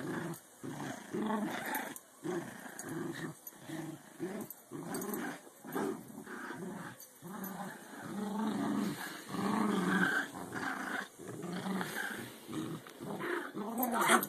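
American Eskimo dogs play-growling while they wrestle and tug, a steady run of short rough growls one after another.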